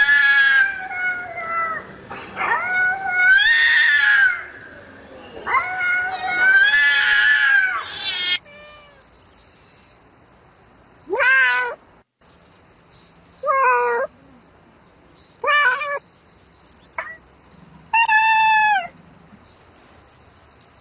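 Domestic cat yowling: three long, loud, drawn-out calls over the first eight seconds, then five shorter meows a second or two apart. Calls of a cat calling for a mate.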